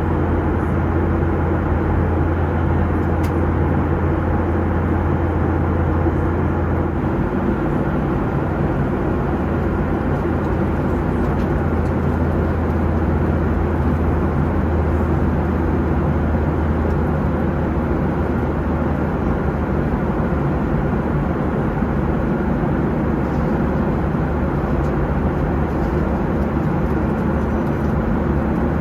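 Boeing 737-800 cabin noise in flight: a steady rush of engine and airflow noise with a low hum underneath. The hum shifts slightly about seven seconds in.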